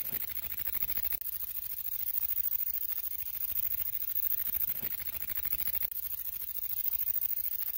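Grasshopper stridulating: a steady, very high-pitched hissing buzz made of rapid, even pulses.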